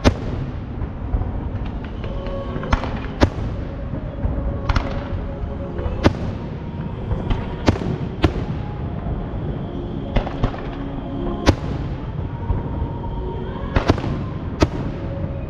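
Aerial fireworks bursting: about a dozen sharp bangs at irregular intervals, one every second or so, over a continuous low rumble of more distant shells.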